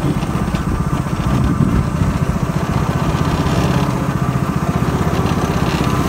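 Go-kart engine running steadily while the kart is driven along the track, a rapid, even low pulsing.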